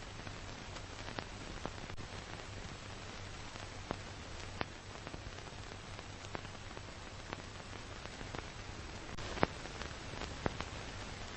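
Steady hiss with a low hum and scattered sharp pops and crackles, the loudest about nine seconds in: the surface noise of an old archival film transfer with no recorded sound.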